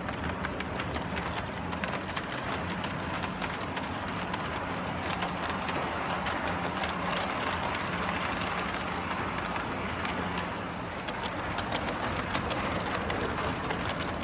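LGB garden-scale model trains running on the layout's track, giving a dense, irregular clicking over a steady hum.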